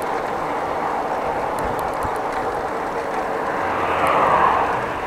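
Steady road traffic noise, swelling as a vehicle passes about four seconds in.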